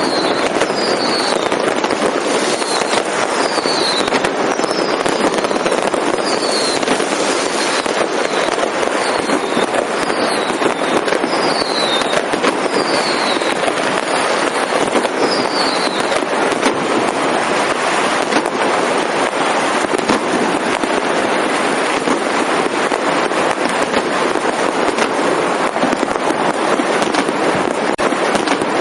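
Fireworks and firecrackers going off in dense, continuous crackling and banging, with no pause. About a dozen short falling whistles cut through it in the first half, about one every second or so.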